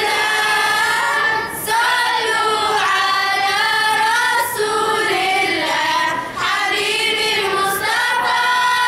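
A group of young girls singing a nasheed together, with long held notes.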